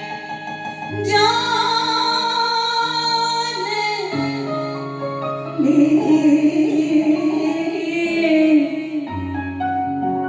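Music: a woman singing long held notes without clear words over a soft instrumental accompaniment.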